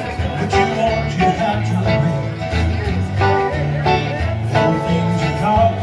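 Small live band playing through outdoor PA speakers: acoustic guitars strummed over an electric keyboard.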